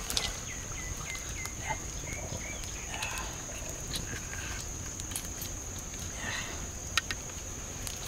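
A steady high-pitched insect drone, with a quick run of short repeated chirps in the first second or two and a few sharp clicks and knocks near the end.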